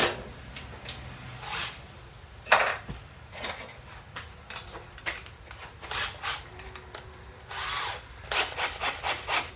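A series of short scraping and rasping sounds from tools being worked against metal air line, some closely grouped near the end.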